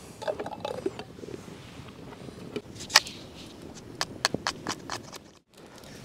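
Wood fire in a metal fire barrel crackling: scattered sharp pops and snaps, the loudest about three seconds in, followed by a brief hiss.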